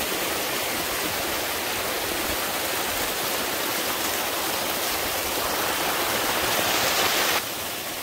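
Waterfall rushing in a steady hiss of falling water, growing slightly louder and then dropping suddenly in level near the end.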